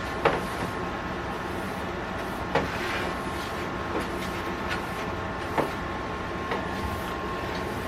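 Household items handled and set down, giving about five short, sharp clicks and knocks over a steady background hum.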